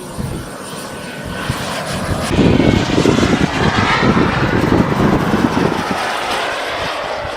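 Radio-controlled model jet flying past, its engine noise swelling about two seconds in and staying loud.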